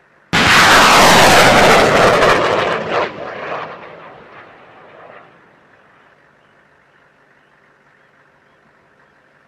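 A rocket launching from an M142 HIMARS launcher: a sudden blast, then a loud rocket-motor roar for about two and a half seconds that fades away over the next few seconds.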